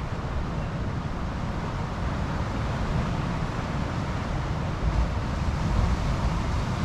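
Distant ocean surf: a steady low wash of noise that swells a little louder about five seconds in.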